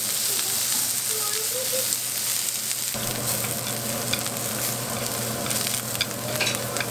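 Julienned carrots sizzling in oil in a hot pan as they are stir-fried over high heat, with a steady hiss. In the second half there are light clicks as the utensil stirs against the pan.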